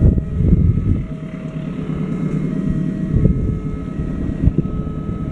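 Wind buffeting the microphone in irregular gusts over a steady low rumble, with faint short tones coming and going in the background.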